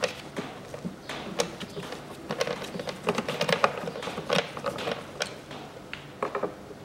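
Irregular small clicks and taps of hand work on the plastic air filter housing, as the self-tapping screws of its cover are turned in.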